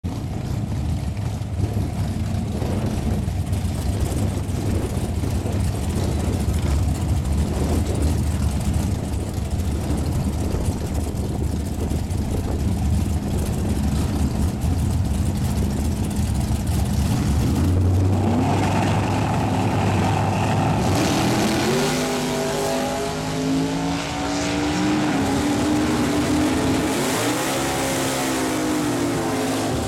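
Drag-racing Chevy Nova's engine rumbling with a rough, uneven idle while it stages for the first half, then held at high revs for a few seconds. It then launches and accelerates hard, its revs climbing and dropping back at several gear shifts as it runs down the strip.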